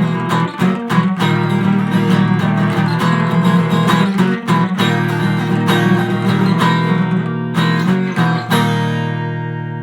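Acoustic guitar music, strummed chords; about eight and a half seconds in, a last chord is left ringing and fades away.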